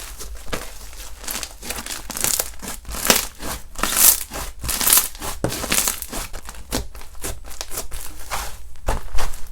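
Slime being squeezed, stretched and pressed by hand, giving a dense run of crinkly, crackling squishes, several a second.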